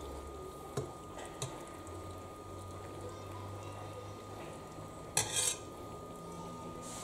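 Metal ladle serving stewed meat and vegetables from a stainless steel pot into a china plate, with a few light clinks of the ladle against the dish and a brief louder clatter about five seconds in.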